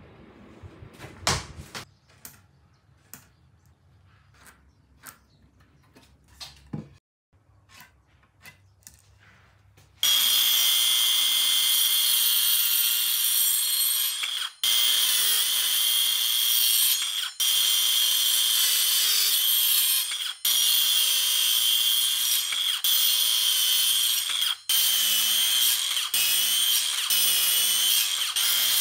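Worx WORXSAW compact circular saw running and cutting through softwood lumber, a steady high whine that starts about ten seconds in. Before it, a few light clicks and knocks of wood.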